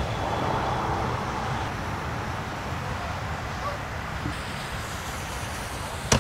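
Steady highway traffic noise with a low rumble, a passing vehicle fading away in the first second or two. A single sharp click near the end.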